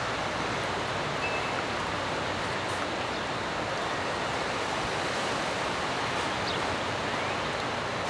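Steady, even hiss of outdoor noise, with a few faint short chirps over it near the end.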